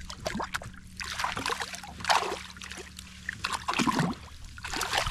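Water splashing and trickling beside a boat in a few irregular bursts, the largest about two seconds in. A faint steady hum runs underneath and stops a little past halfway.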